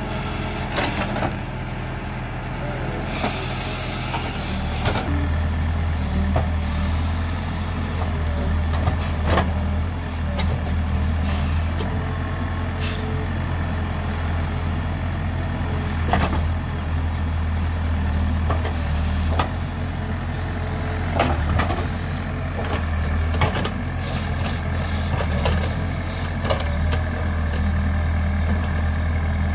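Heavy diesel engine running steadily, working harder from about five seconds in and rising and falling after that, with scattered sharp metallic knocks. A short hiss comes about three seconds in.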